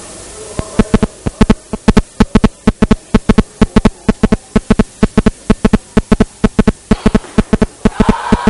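Fast, even hand clapping, several claps a second, urging on a weightlifter during his lift. Shouting voices rise over it near the end.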